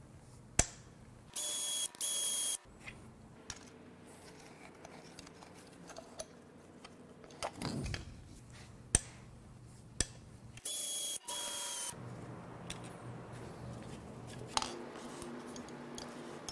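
A cordless power tool's motor whining in two short runs, each a quick double pull of the trigger, about a second in and again about eleven seconds in. Between the runs come scattered metal clicks and clinks of tools on the engine being dismantled.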